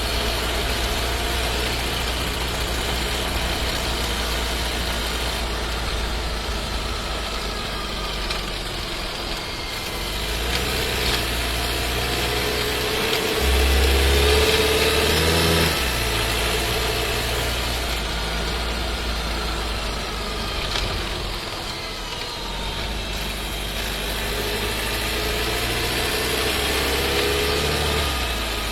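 Skoda Scala's 1.5 TSI four-cylinder petrol engine and DSG gearbox heard from inside the cabin while driving. The engine pitch rises and falls, and a louder low drone comes in about halfway.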